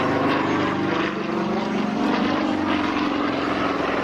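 Sukhoi Su-26 aerobatic plane's nine-cylinder radial engine and propeller running at power in flight, a steady drone that dips briefly about a second in.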